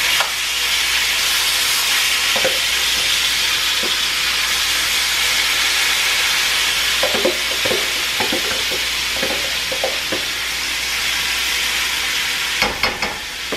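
Strips of marinated beef sizzling loudly in hot vegetable oil in a stainless steel skillet, with a metal spoon clinking and scraping against the pan as the meat is spread out. The sizzle drops off sharply near the end, with a few clicks.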